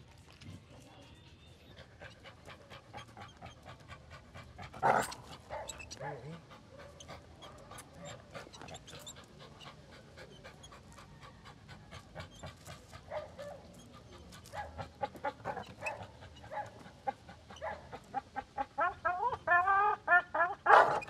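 Dog panting hard in quick, rhythmic breaths while it hangs by its jaws from a tyre, the breaths growing louder toward the end. A sharp knock sounds about five seconds in.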